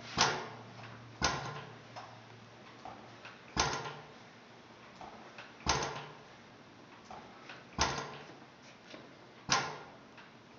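Blaisdell engine-compressor's gas engine firing in a hit-and-miss pattern: six sharp exhaust bangs at uneven gaps of one to two and a half seconds, each dying away before the next, over a faint steady hum.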